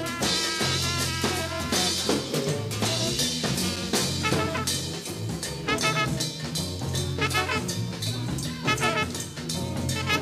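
Jazz band playing in a 1970s studio session heard from a cassette dub of the master reel: drum kit, bass and horns including trumpet. Quick runs of short high notes come in about four seconds in and again near the end.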